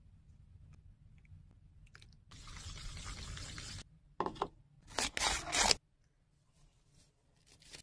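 Close-miked kitchen-prep sounds: a plastic spoon stirring a wet mixture in a small bowl for about a second and a half. Then come louder rustling and a pour as a packet of pretzel mix is emptied into a plastic bowl.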